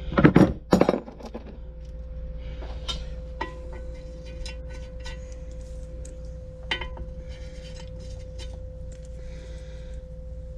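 Light metallic clinks and taps of hand tools and small parts against the internals of a 12 hp Briggs & Stratton engine during hand disassembly, over a steady low hum. A few louder knocks come in the first second.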